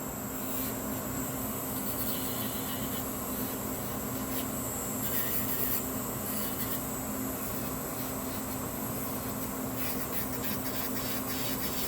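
A gel nail being filed to shape, giving a steady rubbing and scratching sound over a constant low hum.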